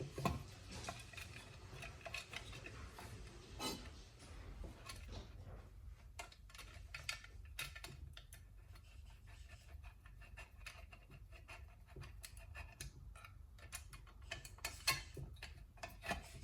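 Faint, scattered clicks, taps and rubbing of small metal parts being handled: bolts and a chainsaw muffler cover being fitted by hand.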